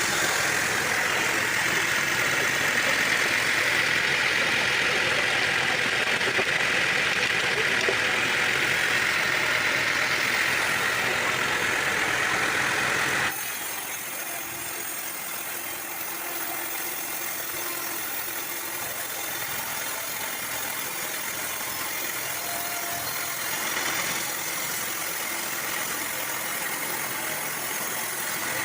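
Sawmill machinery running, a steady engine-driven noise that drops suddenly to a quieter, duller level about halfway through.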